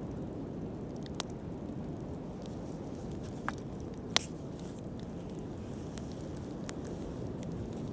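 Wood fire burning with a steady low rush, broken by a few sharp crackles and pops; the loudest pop comes about four seconds in.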